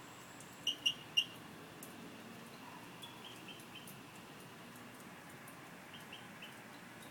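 Three short, sharp, frog-like chirps from an unidentified nocturnal animal up in a tree, close together about a second in, then fainter runs of similar chirps from farther off.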